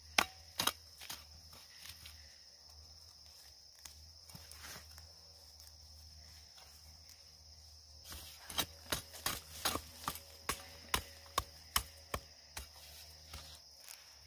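Hand hoe chopping into soil among peanut plants: two blows at the start and a few scattered ones after, then from about halfway a quick run of strikes, about two a second. A steady high hum sits underneath.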